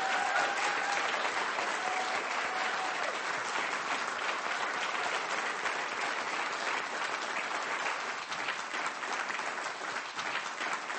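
An audience applauding, a dense steady clapping that eases off slightly near the end.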